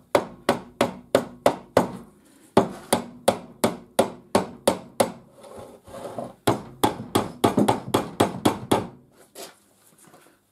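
A hammer tapping gently and quickly on a stuck part of an old mitre trimmer to work it loose, about three to four light blows a second, in three runs with short pauses between them. The parts are seized together by age rather than held by any fastener.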